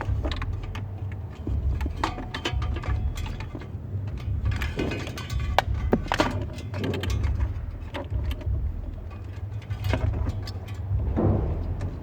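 Cables and connectors being handled and pushed through the dashboard opening: irregular clicks, knocks and rustling of wires against plastic trim, with a few short scrapes, over a steady low rumble.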